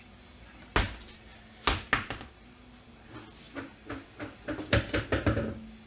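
Scattered sharp knocks and clatter from hands and tools working on a car's rear brake: single knocks about a second and two seconds in, then a quick run of several knocks near the end.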